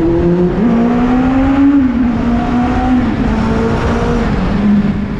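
High-revving vehicle engine pulling hard. Its pitch climbs slowly and drops sharply at each gear change, about two seconds and three seconds in.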